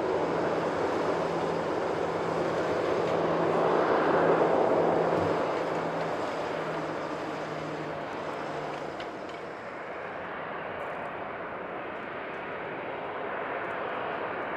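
Boeing 737-800's CFM56-7B jet engines running at taxi power as the airliner moves along the runway. It is a steady jet noise that swells about four seconds in, then fades and rises again slightly near the end.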